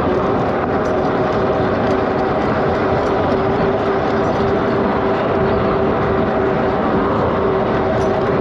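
Super73 electric bike ridden at steady cruising speed: wind and road noise rushing over the microphone, with a steady whine held at one pitch.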